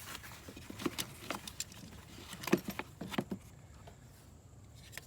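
A run of small clicks, taps and rattles as a portable jump starter and its USB cable are handled, the loudest about two and a half seconds in.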